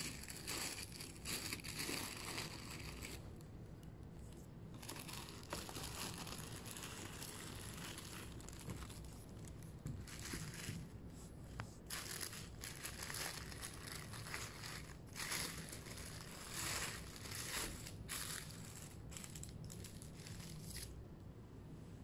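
Thin tissue wrapping paper crinkling and rustling in irregular bursts as it is unfolded and pulled aside by hand, dying down shortly before the end.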